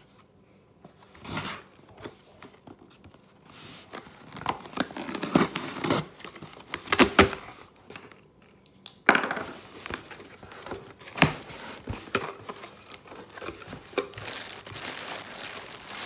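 Cardboard shipping box being opened: packing tape cut and torn away and the cardboard flaps pulled back, in irregular rasps and knocks. Near the end, plastic air-cushion packing crinkles as it is lifted out.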